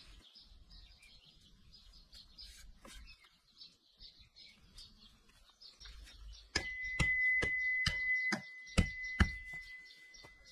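A metal fist-shaped hammer head striking a wooden post about seven times, roughly two blows a second, with a steady high ringing tone that starts at the first blow and fades a couple of seconds after the last. Faint birdsong before the blows begin.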